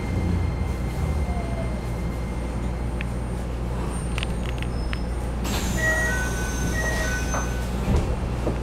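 Keikyu New 1000 series electric train running, heard from inside the passenger car: steady rumble of wheels on rail with the sound of its Toyo IGBT-VVVF inverter traction equipment. A few high steady tones come in about halfway through.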